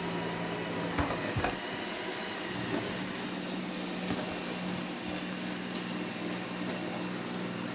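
Xiaomi Mi robot vacuum running: a steady fan hum with a couple of light clicks about a second in.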